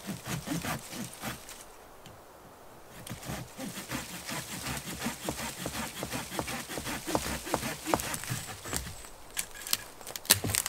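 Wicked Tree Gear folding handsaw cutting through a dead sapling's dry wood: quick, rhythmic back-and-forth sawing strokes, with a short pause about two seconds in. A couple of sharp cracks come near the end.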